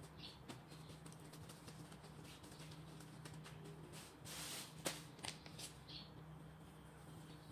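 Faint soft rustling and clicking of gloved hands mixing raw meat and sliced onions, over a low steady hum. A brief louder rustle a little past halfway ends in one sharp click.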